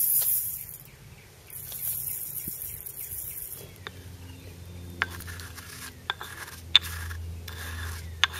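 Sodium hydroxide granules poured from a plastic bottle into a steel can, a pattering hiss in two pours. From about four seconds in, a pestle grinds the granules in a stone mortar, with scraping and sharp clicks.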